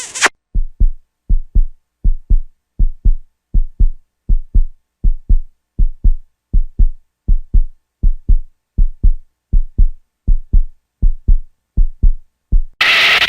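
Heartbeat sound effect: a steady, low double thump, lub-dub, about eighty beats a minute. Near the end it is cut off abruptly by a loud burst of music.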